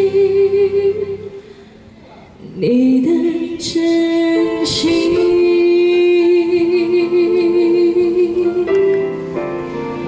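A man and a woman singing a pop duet through handheld microphones over backing music, mostly long held notes with a slight waver. There is a brief lull about two seconds in.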